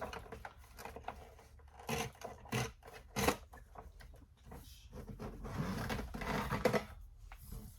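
Handling of a Hoover Tempo bagless upright vacuum's hose and plastic body: rubbing and scraping with several knocks, the sharpest one a little over three seconds in.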